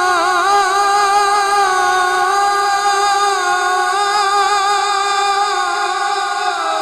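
A man's unaccompanied voice holding one long sung note with small wavering ornaments, a melisma in devotional naat singing, amplified through a microphone; the pitch dips slightly near the end.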